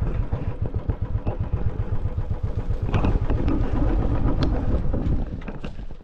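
A motorbike riding along, its engine running with wind buffeting the microphone; it eases off and slows, going quieter about five seconds in.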